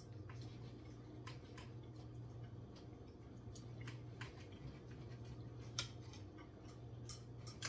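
Faint, irregular clicks and taps of a knife and fork on a plate as meat is cut from a ribeye steak bone, over a steady low hum.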